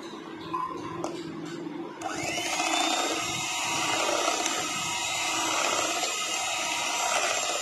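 Electric hand mixer switched on about two seconds in. Its motor whines up to speed and then runs steadily as the twin beaters mix flour into cake batter.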